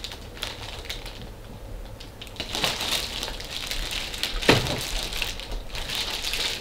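Clear plastic bag around a robot vacuum crinkling irregularly as the wrapped robot is handled and lifted out of a moulded pulp packing tray, with one thump about four and a half seconds in.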